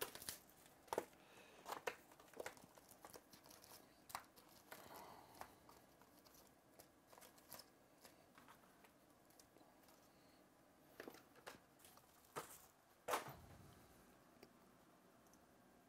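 Faint handling noises of trading cards and foil-wrapped card packs: scattered soft ticks, taps and crinkles as the packs are lifted and set down in stacks, with a slightly louder rustle about 13 seconds in.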